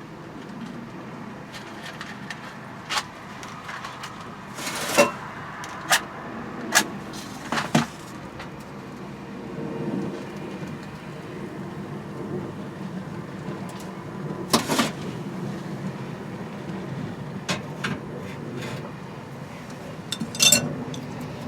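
A pan being set on a hob and kitchen things handled: scattered clicks, knocks and clatters, with a faint low steady hum from about halfway through.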